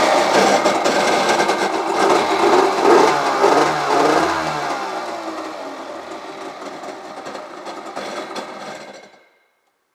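Tigershark Monte Carlo 770 personal watercraft's two-stroke twin engine running, revved up and down, louder in the first few seconds and settling lower, then cutting off about nine seconds in.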